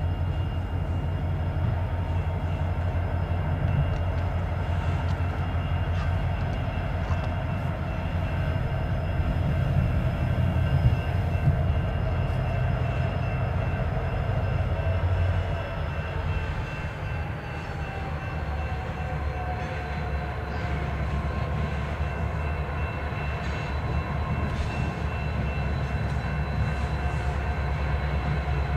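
Freight train rolling by with a steady low rumble. A few high steady tones ride over it and drop slightly in pitch about halfway through.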